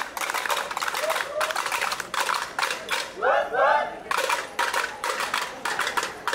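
Crowd of marchers cheering and calling out over a run of sharp percussion hits, several a second, with a couple of high whooping calls about three seconds in.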